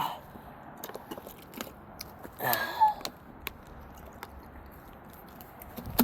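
Someone drinking a beer: small clicks and handling noises, with a short gulp-and-breath vocal sound about two and a half seconds in, and a sharp click near the end.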